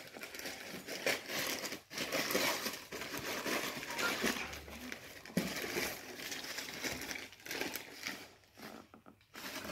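Rustling, crinkling handling noise with a few light knocks, as silver-plated porcelain tableware and its packing are handled and a tray is turned over.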